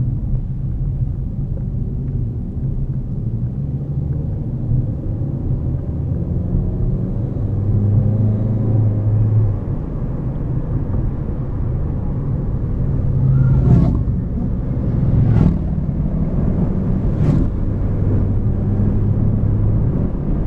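Hyundai Elantra being driven: steady engine and road rumble, with three short sharp knocks about a second and a half apart a little past the middle.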